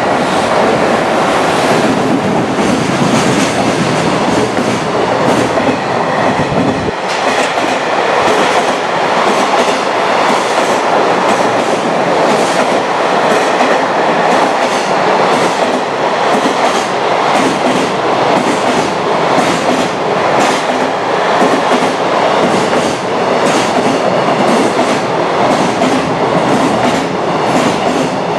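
Long container freight train passing through a station at speed. A deep rumble fills the first seven seconds or so as the locomotive goes by. Then comes a steady run of container wagons, their wheels clacking regularly over the rail joints.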